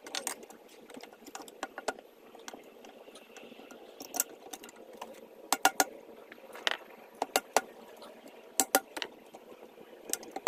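Irregular sharp clicks and knocks, several in quick clusters, over a faint steady hiss.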